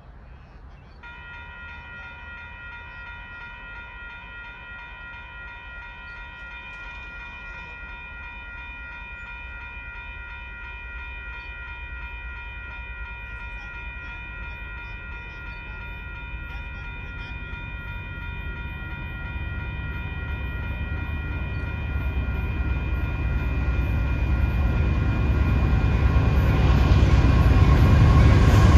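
Approaching CSX diesel-hauled freight train: the low rumble of the locomotive and cars grows steadily louder as the train draws near. A steady chord of several high tones starts about a second in and holds on unchanged.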